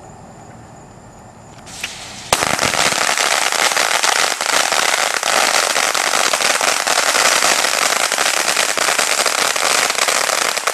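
A roll of TNT Titanium firecrackers going off: a rapid, unbroken string of loud cracks starts about two seconds in and runs for about eight and a half seconds before stopping abruptly, with no duds in the roll.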